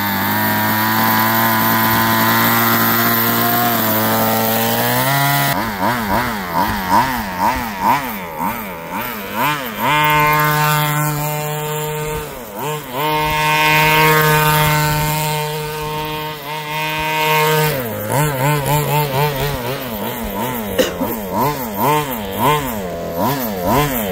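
Small fuel engine of a 1/5-scale RC buggy running at high revs. Its pitch swings up and down with the throttle and holds steady and high for several seconds midway.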